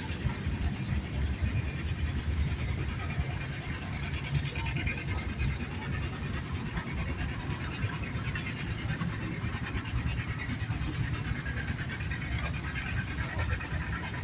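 Engines running with a steady low rumble.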